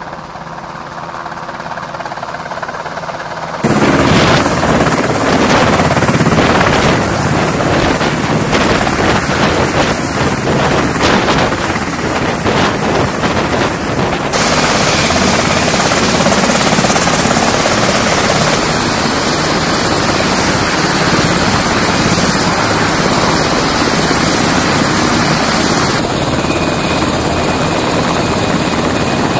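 MH-60S Seahawk helicopter's main and tail rotors and twin turboshaft engines running loud on a ship's flight deck. The sound is fainter and growing for the first few seconds, then jumps to full loudness about four seconds in. It changes character abruptly twice more, at shot changes.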